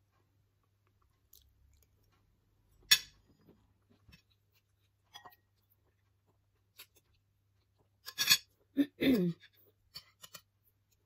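Close-miked chewing of a mouthful of shrimp fried rice, with scattered soft clicks. A single sharp click about three seconds in is the loudest sound, and a short cluster of louder mouth and spoon noises comes near the end.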